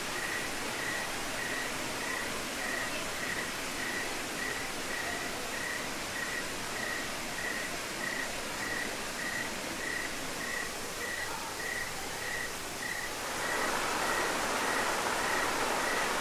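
Night outdoor ambience: a steady hiss with a short high chirp repeating about twice a second, typical of a night insect. About 13 seconds in, the louder rushing splash of a fountain takes over.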